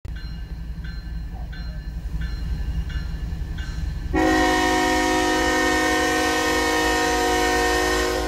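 Railroad crossing bell ringing about one and a half times a second over a low rumble; about four seconds in, a Norfolk Southern locomotive's air horn sounds one long, steady multi-note chord.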